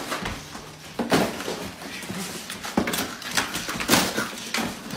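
A Boston Terrier ripping up a cardboard box on a wooden floor: an irregular series of sharp tearing and thumping noises, about five strong ones, over a steady rustle of cardboard.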